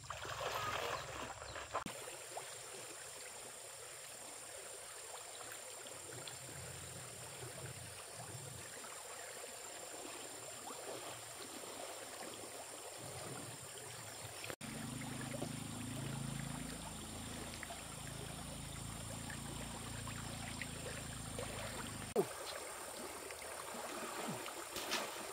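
Faint, steady running water of a stream, its low end changing abruptly about halfway through.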